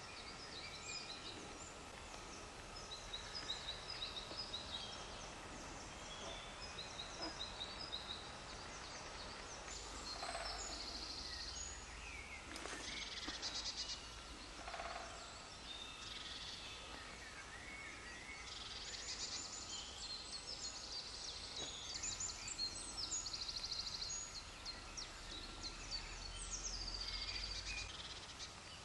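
Several small songbirds singing at once: overlapping chirps and quick rattling trills, over a steady outdoor background with a faint low rumble at times.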